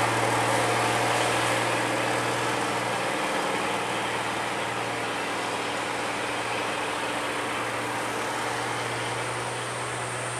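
Diesel engines of heavy loaded trucks pulling slowly up a climb, a steady low drone that fades gradually as they move away.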